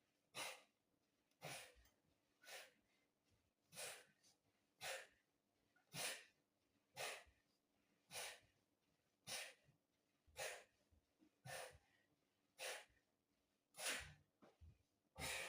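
A man's forceful breaths out, one with each crunch, in a steady rhythm of about one a second. The breathing is heavy from exertion during a set of sit-up crunches.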